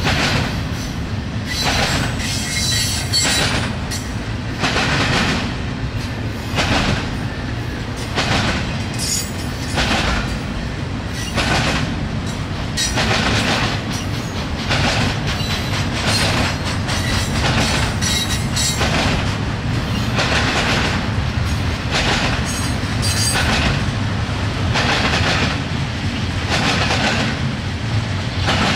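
Double-stack intermodal well cars of a freight train rolling past at close range: a steady low rumble with a rhythmic clatter about once a second as each set of wheels passes over the rail.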